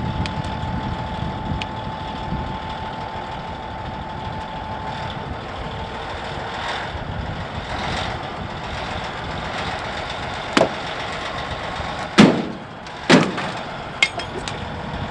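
Caterpillar D8 bulldozer's diesel engine running steadily as it pulls a tow strap taut. Near the end come four sharp bangs within about three and a half seconds, the second the loudest, as the pickup's frame-mounted hitch receiver tears apart at about 24,500 pounds and the strap snaps back into the straw bales.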